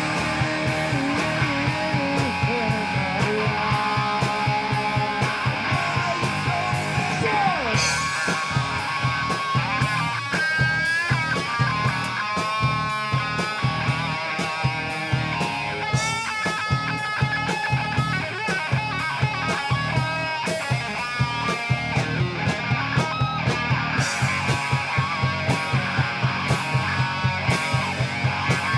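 A rock band playing live at a soundcheck: electric guitar over a steady drum beat, with bent, wavering guitar notes partway through.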